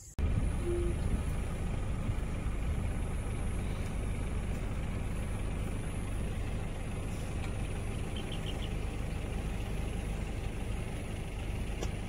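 Wind buffeting the microphone: a loud, steady low rumble with no rise or fall.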